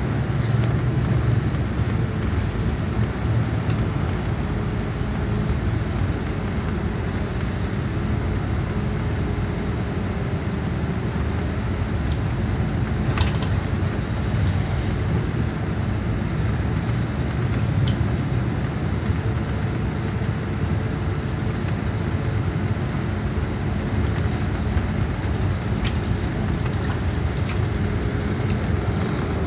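Steady low rumble of a Greyhound coach's diesel engine and tyres on the road, heard from inside the passenger cabin, with a faint hum and a sharp click about halfway through.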